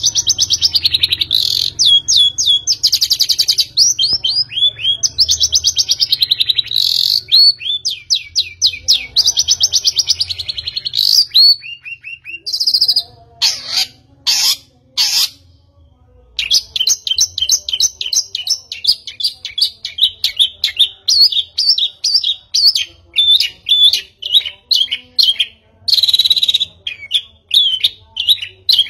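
A small bird singing loudly and almost without pause: fast chirps and rattling trills, with a short break about halfway through before the song picks up again.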